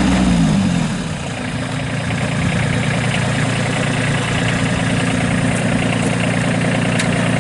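Kubota B2301 compact tractor's three-cylinder diesel engine coming down in revs during the first second, then running steadily at a lower speed.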